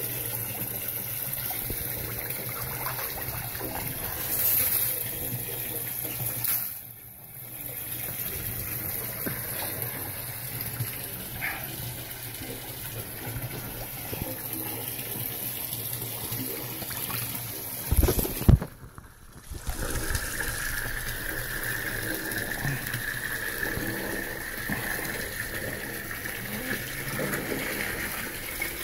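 Hot spring water pouring steadily from a pipe into a soaking tub, a continuous rushing splash. A couple of loud bumps about two-thirds of the way through briefly break it.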